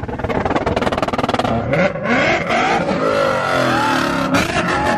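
Car engines revving hard on a two-step limiter, the exhaust crackling with a rapid string of pops for the first couple of seconds, then revs rising and falling.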